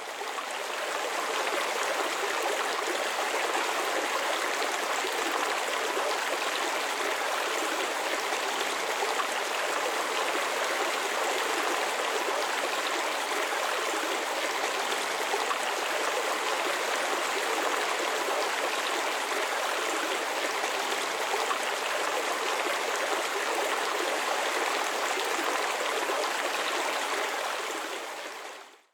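Brook water flowing and babbling over rocks in a steady, even rush. It fades in at the start and fades out near the end.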